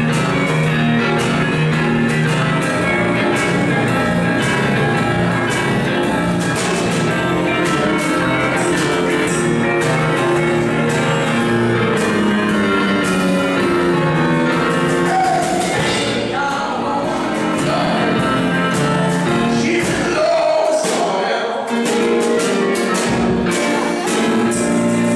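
Small live band playing: electric guitar, drum kit and electric keyboard. The low end drops out for a moment about twenty seconds in, then returns.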